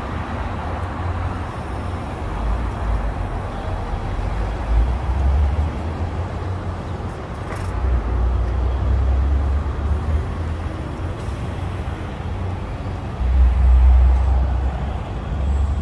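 Outdoor traffic noise: a low rumble that swells and fades several times, loudest about 13 to 14 seconds in.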